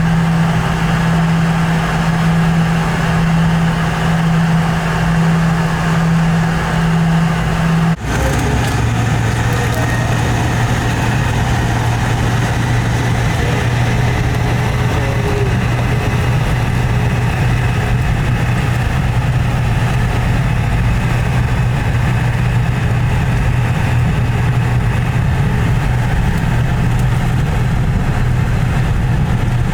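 Boeing 717 jet engine and airflow noise heard inside the passenger cabin: a steady low drone over a broad rushing hiss. About eight seconds in it breaks off abruptly and resumes with the drone lower in pitch.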